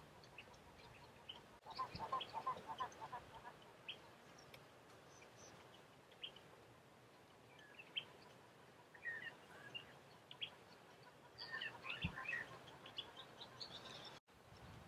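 Faint birdsong: scattered short chirps and whistles, with a run of quick notes about two seconds in and a busier flurry of calls near the end.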